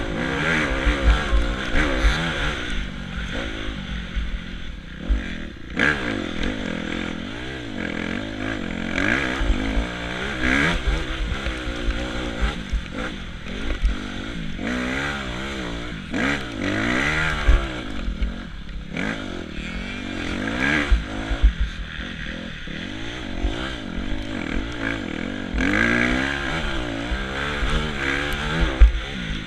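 Suzuki motocross bike's engine revving hard and dropping back over and over as the rider accelerates, shifts and brakes around the track, with occasional knocks from bumps. Wind buffets the helmet-mounted microphone.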